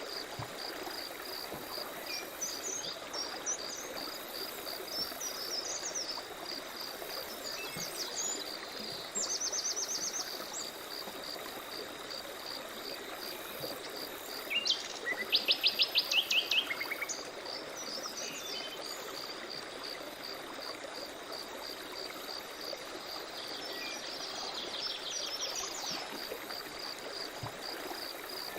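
Forest soundscape of birds singing over running stream water, with a steady, evenly repeated high chirp throughout. Rapid trilled bird phrases come about nine seconds in, a louder one around fifteen seconds in, and another near twenty-five seconds.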